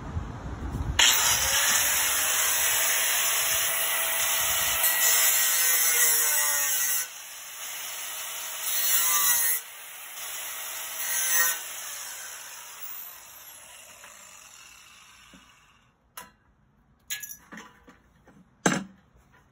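Angle grinder with a cut-off wheel cutting through steel drip edge flashing. It starts about a second in and cuts steadily for about six seconds, then makes two shorter cuts, and the sound dies away over several seconds. A few sharp clicks and a knock from the metal being handled follow near the end.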